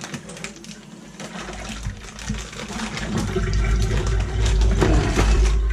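Brine pouring out of a plastic zip-top bag into a stainless steel sink, a rushing, splashing flow of liquid. The flow gets louder about halfway through as the bag is tipped further.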